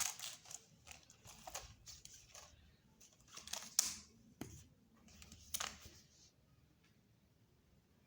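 Packaging being handled and torn open, with rustling and crinkling in short, irregular bursts that stop about six seconds in.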